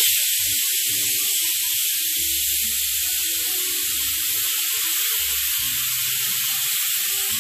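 Stainless-steel stovetop pressure cooker letting off steam in a loud, steady hiss, a pressure-cooker "whistle": the beef inside is cooking at full pressure.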